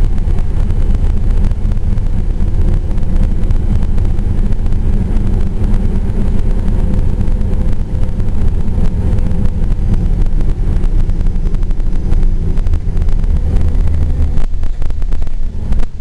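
Steady, loud engine and road rumble heard from inside a moving Gillig transit bus, with a faint steady whine over it.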